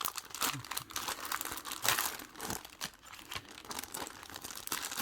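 Crinkly wrapping on packs of scrapbooking papers being handled and unwrapped: irregular crackling and rustling, loudest around two seconds in.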